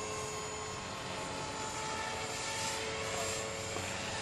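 Electric RC helicopter in flight: the Dragonus's JGF 500TH brushless motor and rotor head give a steady whine with slight shifts in pitch, over a noisy rush of rotor wash.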